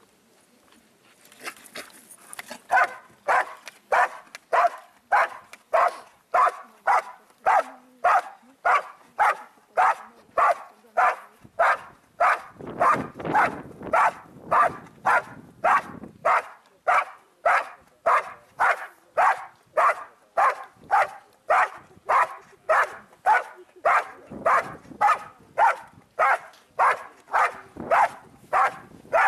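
A protection dog barking steadily and rhythmically, just under two loud barks a second, at a helper held in a hiding blind: the 'bark and hold' of IGP protection work. The barking starts about two and a half seconds in, once the dog reaches the blind.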